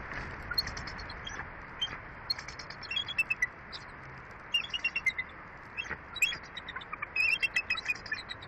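Bald eagle chortling: several bursts of rapid, high-pitched, staccato chirps and squeals, each lasting under a second to about a second and a half, over a steady rush of mountain wind on the nest microphone.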